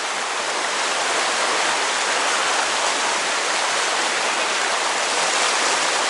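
Mountain stream running fast over rocks and through rapids: a steady rushing of water.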